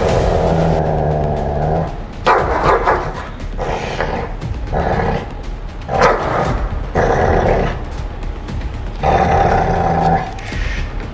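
Dog growling in a series of long, rumbling growls, one to two seconds each with short breaks. It is guarding a cushion under the sofa against a tennis racket pushed at it, and the growls warn off the challenger.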